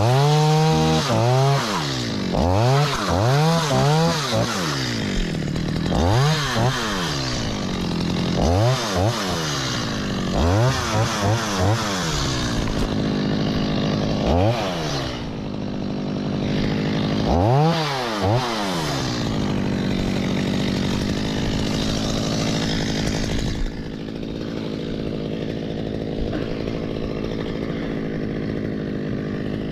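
Stihl chainsaw revving up and down in repeated short bursts, each a rise and fall in pitch, as it cuts through coconut palm fronds at the crown of the tree. Past the middle the revving stops and the saw runs at a steady idle.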